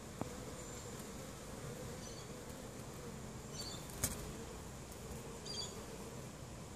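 Honey bees buzzing at a hive entrance: a faint, steady, slightly wavering hum. A few brief high chirps come and go, and two sharp clicks are heard, the louder about four seconds in.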